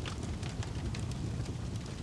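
Wood fire crackling in a fireplace: a steady low rumble of burning logs with frequent sharp pops and snaps scattered irregularly.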